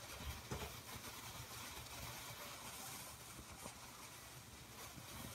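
Faint outdoor ambience: a steady low rumble under a light hiss, with a few faint ticks.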